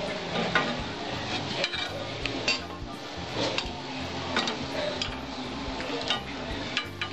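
Kitchen utensil clinking and scraping against a karai (wok) in a run of irregular clinks, as boiled banana flower pieces are handled in the pan.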